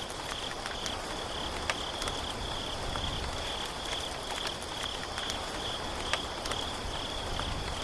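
Insect chirping steadily, a high pulse about two to three times a second, with scattered light clicks and a low rumble underneath.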